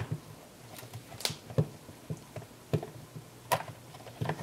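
Scattered small plastic clicks and taps as the back cover of a Canon EOS 60D is eased off the camera body by hand.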